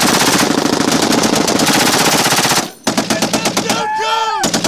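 Belt-fed medium machine gun firing from its bipod in long automatic bursts: one sustained burst, a short break about two and a half seconds in, then a second burst.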